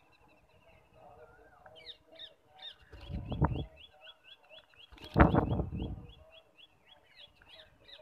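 Rose-ringed parakeets calling: a quick, even run of short rising chirps, about three a second. Two louder bursts of wing flapping close to the microphone come about three seconds in and again about five seconds in.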